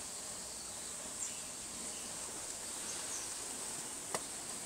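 Outdoor ambience of steady, high-pitched insect drone, with a couple of faint short chirps and a single sharp click about four seconds in.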